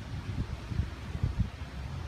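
Wind buffeting the microphone: a low rumble with a few stronger gusts in the middle.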